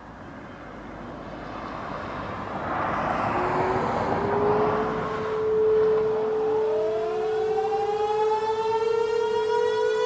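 Warning sirens starting up. A steady siren tone comes in about three seconds in, and from about six and a half seconds a second, rich tone climbs steadily in pitch as the Federal Signal Model 1 motor siren winds up. A rushing noise swells and fades over the first half.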